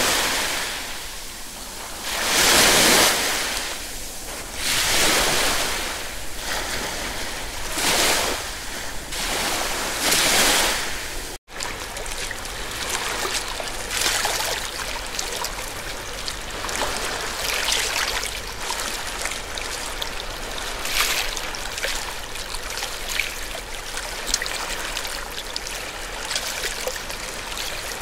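Ocean surf washing ashore, a wave surging and fading every two to three seconds. About eleven seconds in the sound cuts off abruptly and gives way to a steadier, more even rushing noise with a faint low hum.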